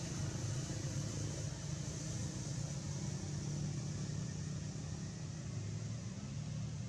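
Steady low rumble under an even hiss, with no distinct events.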